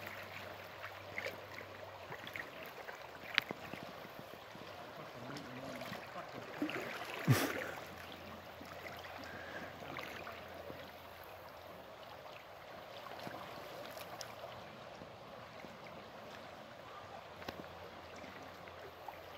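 Shallow creek water running over gravel, a steady soft rush. A few short sharp clicks stand out, the loudest about seven seconds in.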